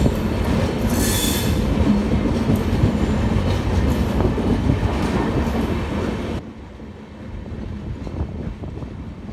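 Indian Railways passenger train running around a curve, the wheels squealing against the rails and clattering over rail joints. About six seconds in the train noise drops away abruptly to something much quieter.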